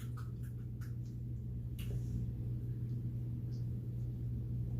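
Quiet room tone: a steady low hum with a few faint, small clicks.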